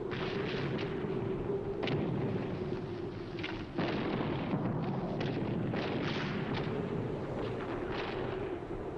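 Battle sound effects: a steady rumble with about a dozen sharp cracks at irregular intervals, like distant artillery and gunfire.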